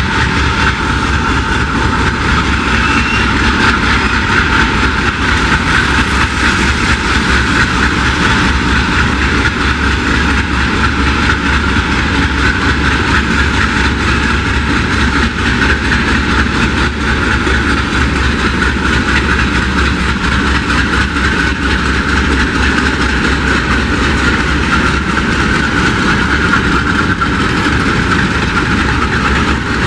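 GE C30-7 diesel-electric locomotives passing slowly at close range, their V16 diesel engines running with a steady loud rumble.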